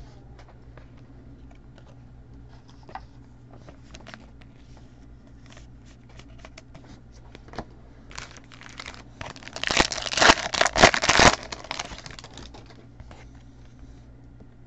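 A trading-card pack wrapper being torn open and crinkled, loudest for a couple of seconds just past the middle. Light clicks and rustles of cards being handled run before and after.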